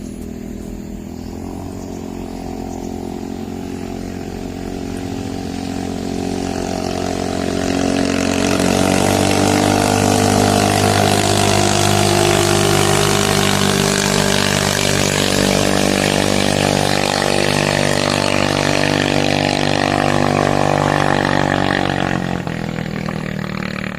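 Big-bore motorcycle racing engine fitted with a 92 mm piston, running and being revved. It climbs in revs about six to eight seconds in, is held high and steady, then drops back near the end.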